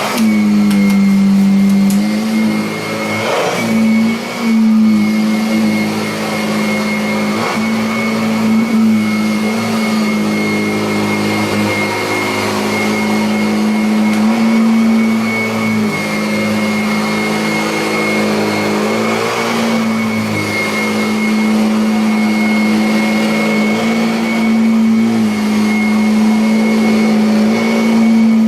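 Kirby Avalir upright vacuum cleaner running on carpet: a steady motor hum with a high fan whine, its pitch shifting slightly now and then as the load changes. A few light knocks come about three to five seconds in.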